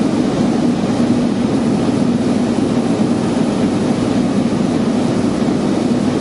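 Piper Turbo Arrow's turbocharged six-cylinder engine and propeller droning steadily in flight, heard from inside the cabin.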